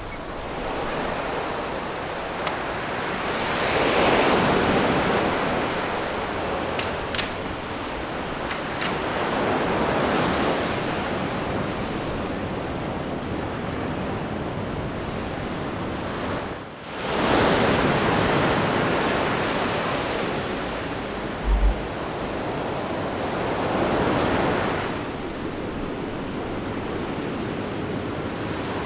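Ocean surf: waves breaking and washing in as a steady rush that swells louder every several seconds, with wind on the microphone. About two-thirds of the way through there is a brief low thump.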